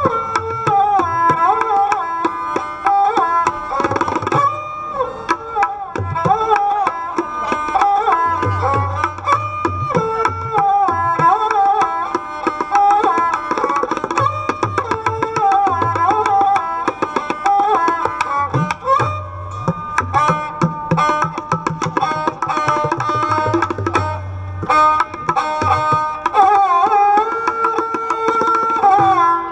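Instrumental background music with tabla drums under a melody that slides between notes.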